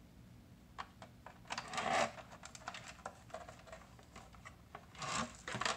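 Cables and plastic being handled as an Ethernet cable is plugged into a router's port. Scattered clicks and rustling, loudest about two seconds in and again near the end.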